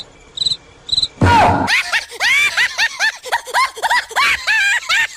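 Cartoon sound effects. Three short, high cricket-like chirps come first, then a burst about a second in, followed by a quick run of squeaky tones that rise and fall, about three a second.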